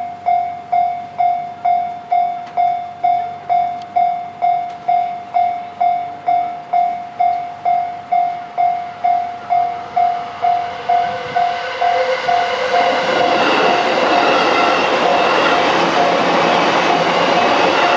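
Japanese level-crossing warning bell ringing steadily, about two strikes a second. From about ten seconds in, a JR E233-series electric train grows louder as it comes through the crossing, and its rumble and whine drown out the bell.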